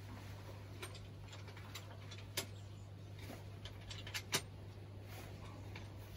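Scattered sharp metal clicks and taps, several seconds apart with a close pair about four seconds in, over a steady low hum: plumber's grips working on brass compression fittings on copper pipe.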